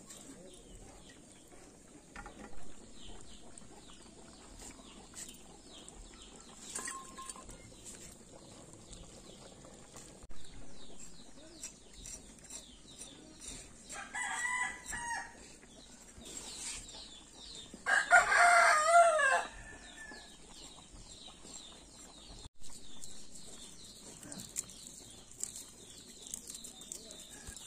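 A rooster crowing once, loud and about a second and a half long, about two-thirds of the way in, after a shorter pitched call about halfway through. Faint scattered taps and short knocks in between.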